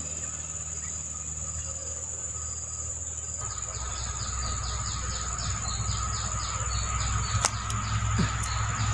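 Forest insects calling: a steady high-pitched drone, joined about three seconds in by a pulsing insect call of about three or four pulses a second. A low rumble runs underneath, and there are a couple of sharp clicks near the end.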